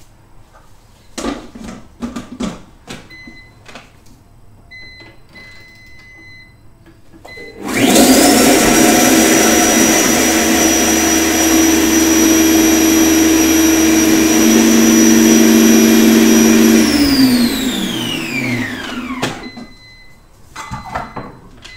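Thermocook Pro M blender-cooker blitzing chillies into paste. After a few short beeps, its motor starts suddenly about eight seconds in and runs at high speed with a loud, steady whine for about nine seconds. It then winds down, its pitch falling away over a couple of seconds, and a few more beeps follow.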